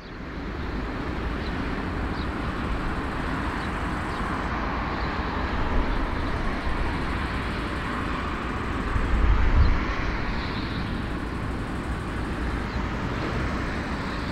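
Four-engine Airbus A340-313 airliner taxiing, its jet engines giving a steady rushing noise, with occasional gusts of wind on the microphone.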